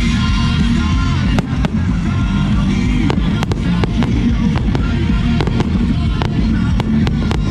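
Aerial fireworks going off in an irregular string of sharp bangs and crackles, several a second at times, over steady background music.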